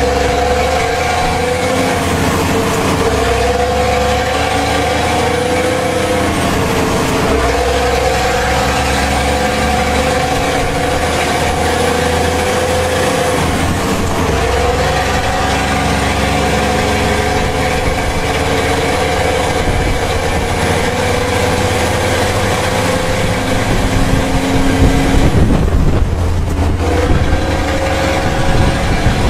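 Ford Ranger pickup driving on a dirt road, heard from inside the cab: steady engine hum over tyre and road rumble, the engine note dipping briefly every few seconds. It gets louder and rougher for a few seconds near the end.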